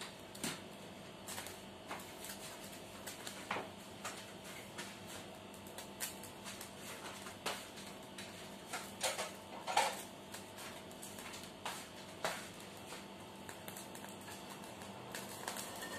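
Wok with leftover water droplets heating over a gas burner: faint, irregular ticks and pops scattered throughout, a few louder ones now and then.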